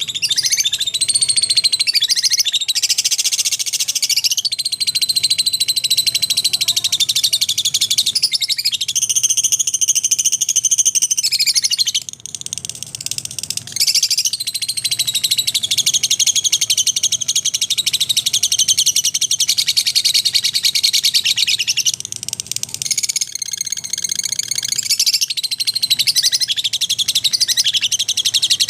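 Lovebirds chattering and calling together in a dense, continuous, high-pitched chatter, with brief lulls about twelve and twenty-two seconds in.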